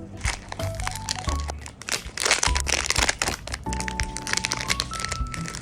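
Blind-box packaging being opened by hand: plastic and cardboard crinkling, cracking and tearing in quick irregular bursts, busiest about two seconds in. A simple melodic background tune plays throughout.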